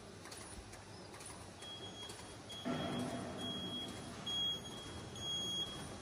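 CPE zipper bag making machine running with a steady mechanical noise. From about two seconds in, a high electronic beep sounds several times, each beep about half a second to a second long.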